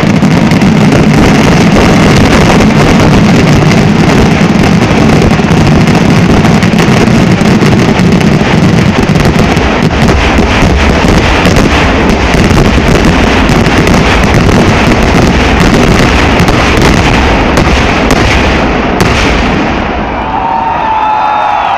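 Kerala temple-festival firework barrage (vedikettu): firecrackers exploding in rapid succession, so dense that the blasts run together into one continuous loud rumble and crackle. It dies down about nineteen seconds in, and crowd voices shouting come up near the end.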